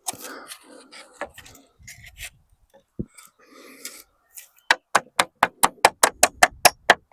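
Rustling and scraping of wood being handled, then about two-thirds of the way in a hammer starts tapping quickly and evenly, about five strikes a second.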